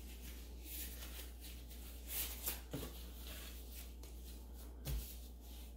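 Quiet handling noises: disposable plastic gloves rustling as bread dough is handled on a countertop, with a few light clicks and a soft thump about five seconds in, over a steady low hum.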